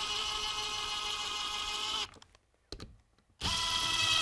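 Brushless Bosch cordless drill-driver driving a screw to fix a thermostat box to the wall, its motor whining steadily. It stops after about two seconds, with a couple of faint clicks, then starts again near the end.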